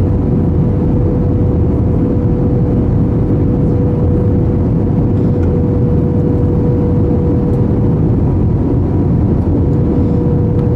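Steady cabin roar of an Airbus A321 airliner, engine and airflow noise heard from a passenger seat, with a constant mid-pitched hum running through it.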